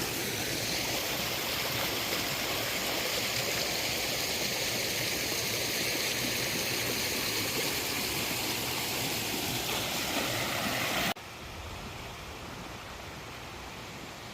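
Storm-swollen creek rushing in a steady wash of water. About eleven seconds in it cuts off abruptly to a quieter steady hiss.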